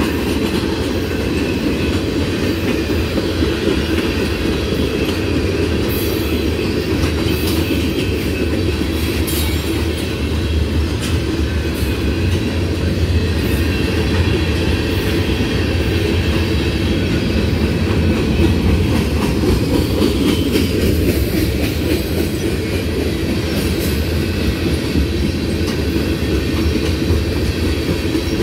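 Freight train cars, tank cars and covered hoppers, rolling steadily past: a continuous rumble of steel wheels on rail, with scattered clicks as the wheels cross rail joints.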